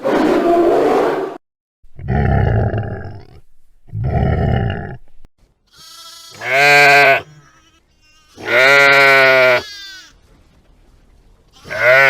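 Sheep bleating: a series of about five separate calls a couple of seconds apart, the first two rough and low, the later ones clearer, drawn-out baas.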